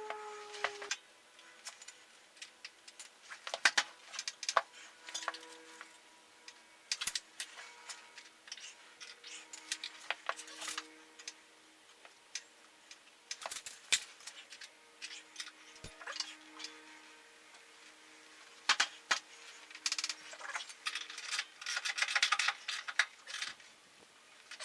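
Hand tools working metal parts on a motorcycle's rear-wheel chain adjusters: irregular metallic clicks, knocks and clinks, with a dense run of clinking near the end.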